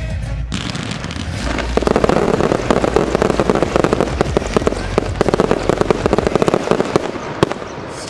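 Fireworks display finale: a rapid barrage of aerial shell bursts and crackling, many sharp bangs a second. It builds about half a second in, is densest through the middle, and thins toward the end, with one louder single bang near the end.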